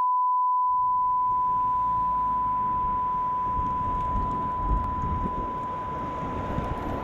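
A steady, unbroken test-tone beep of the kind played with television colour bars, slowly fading. About half a second in, street traffic noise with a low rumble comes in under it and grows.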